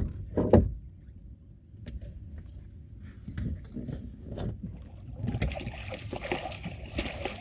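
Hooked blue catfish splashing and churning the water beside the boat, loudest over the last two seconds. Two sharp knocks at the start.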